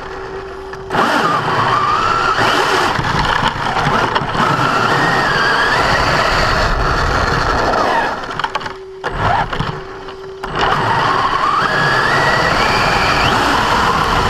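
Electric motor and gear drivetrain of a 1/10-scale Basher Nitro Circus 4x4 RC truck driving in two runs of several seconds, each with a rising motor whine over a harsh grinding noise, and a short pause between them. The owner says the grinding comes only when accelerating, not in reverse or with the wheels off the ground, and that setting the pinion-to-spur gear mesh has not cured it.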